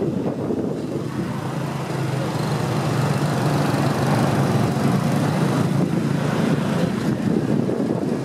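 Moped ride: a small motorbike engine running steadily under wind noise on the microphone, getting slightly louder about two seconds in.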